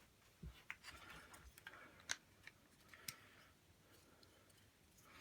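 Faint, sparse clicks and taps of small hard plastic toy pieces being handled and fitted together.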